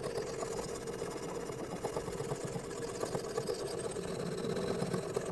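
Sharpening stone on a guided-rod sharpening system rubbing back and forth along a knife's CPR steel blade, a steady rasping of abrasive on steel while the convex (lens) bevel is worked.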